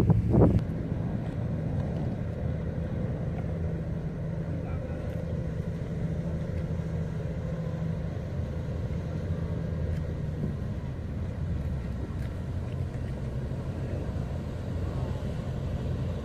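Patrol ship's engines running with a steady low drone as the vessel approaches. A gust of wind hits the microphone about half a second in.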